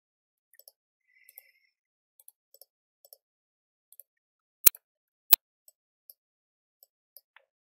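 Computer mouse buttons clicking at an irregular pace, many faint clicks often in quick pairs. Two far louder sharp clicks come about two-thirds of the way through, under a second apart.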